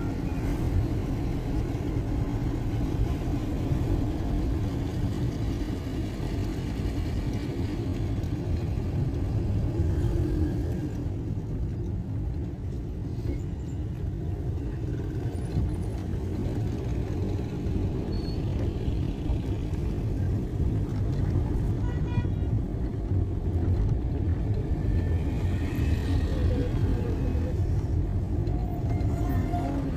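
Steady low rumble of motor-vehicle road traffic, as heard while travelling along a city road, with a faint horn toot or two in the background.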